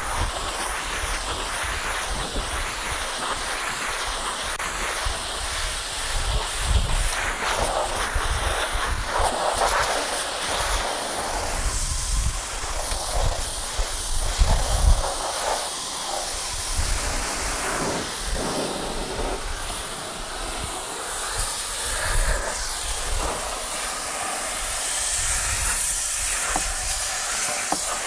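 High-pressure water jet from an HTP-pump washer hissing steadily as it sprays against a small truck's body panels and wheel arch.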